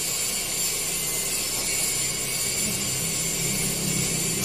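Gas welding torch flame hissing steadily as it heats an aluminium alloy strip. A low hum runs underneath, stronger in the second half.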